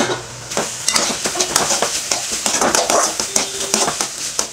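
A metal spatula repeatedly scraping and stirring grated beetroot in a kadai, in quick, irregular strokes, over a low flame.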